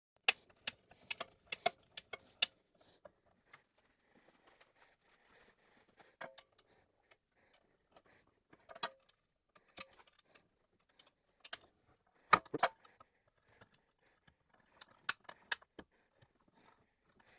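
Metal parts of a belt grinder's tool rest clinking and tapping as the rest is fitted into its mount: scattered sharp clicks with a few louder knocks.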